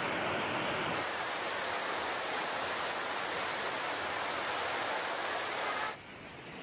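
Steady rushing of water, changing abruptly in tone about a second in and dropping suddenly in level near the end.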